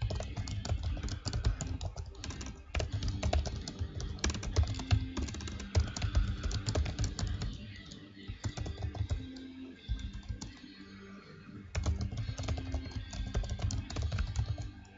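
Typing on a computer keyboard: quick runs of key clicks broken by short pauses, with a longer pause a little past the middle.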